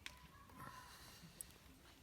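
Near silence with a couple of faint, sharp clicks, one at the very start and one about a second and a half in.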